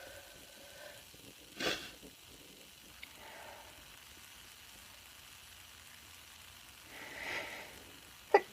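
A woman's nose and breath between sneezes: a short sharp sniff a couple of seconds in, a longer drawn breath near the end, then a brief, sharp burst with a falling pitch just before the end, the loudest sound here.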